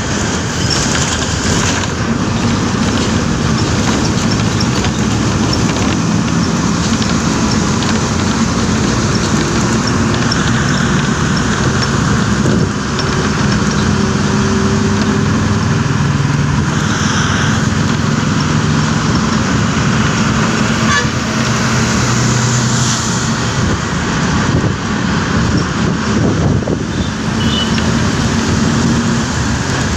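A red MSRTC bus's diesel engine and road noise, loud and steady, heard at its open side window while it drives and overtakes, with vehicle horns honking at times.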